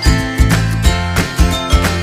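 Background music: guitar-led track with a steady, regular beat.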